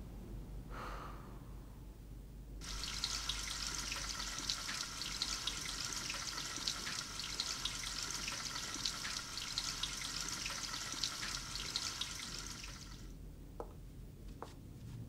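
Water running from a tap into a washbasin, a steady rush that starts suddenly about two and a half seconds in and is shut off about two seconds before the end.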